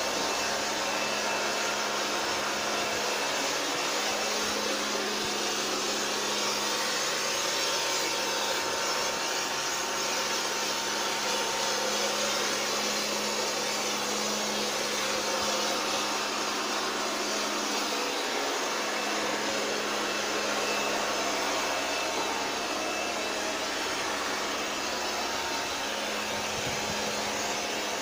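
Electric mini pressure washer running steadily: a motor hum under the hiss of its water jet spraying a scooter's plastic body panels.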